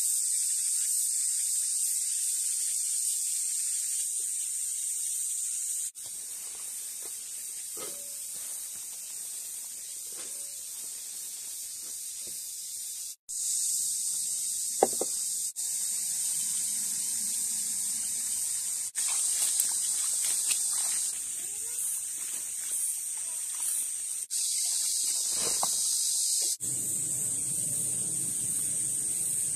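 Steady high-pitched hiss that changes abruptly at several cuts. About three seconds before the end, water starts running from a bamboo pipe and splashing into a bowl as chilies are washed in it by hand.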